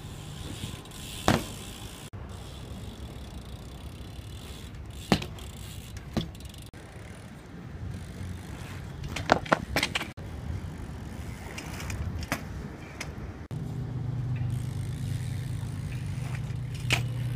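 BMX bikes being ridden on pavement: a low rolling rumble broken by several sharp knocks and clacks of wheels and frame hitting the ground and curb, a cluster of them about halfway through. A steady low hum comes in about three quarters of the way in.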